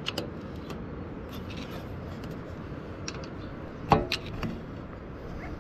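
Scattered light clicks and one sharper metal knock about four seconds in, with a brief ring after it, as tools and parts are handled while the oil filter is taken out of a tiller engine.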